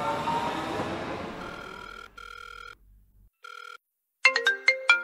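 An electric metro train runs past, its motor whine rising slightly in pitch as it fades out. Then a phone ringing tone sounds three times, followed by a quick, loud melodic ringtone.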